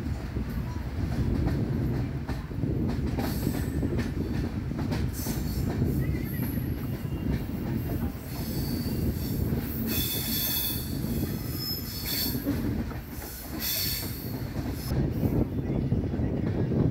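Express train's passenger coaches rolling around a curve, heard from a coach of the train: a steady rumble of wheels on rail with high-pitched wheel squeals coming and going, loudest in the middle of the stretch.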